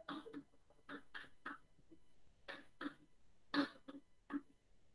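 Chalk writing on a chalkboard: a dozen or so short, faint scratches and taps in small clusters as a chemical structure is drawn stroke by stroke.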